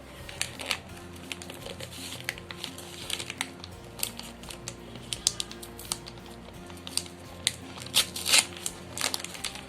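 Packaging being handled and opened: irregular crinkling, rustling and sharp clicks, a loud cluster near the end, over soft background music.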